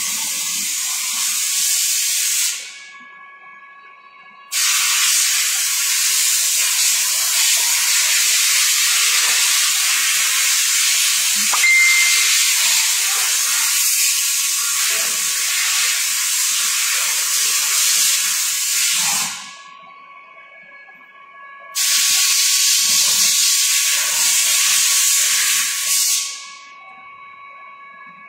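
Pressurised spray hissing in three long bursts that start and stop sharply, the middle one about fifteen seconds long, blowing a reddish mist at a bore being cut on a lathe. A faint steady machine whine sounds under the hissing.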